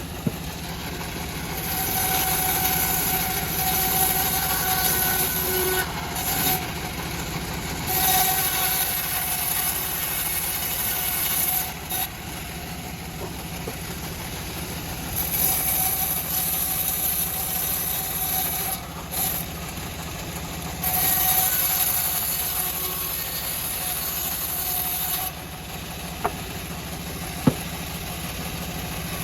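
Homemade engine-driven bandsaw mill running steadily while its band blade cuts teak, with four bouts of a louder high hiss and whine a few seconds each, and a couple of sharp clicks near the end.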